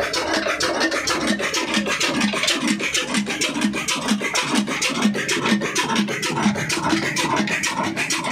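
35 HP Ruston-type desi diesel engine running steadily, with a regular beat of about two to three thuds a second and a quicker metallic clatter over it.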